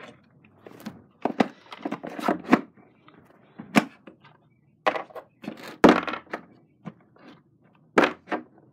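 Irregular knocks and clunks of objects being handled and set down: about a dozen sharp hits at uneven intervals, some in quick pairs.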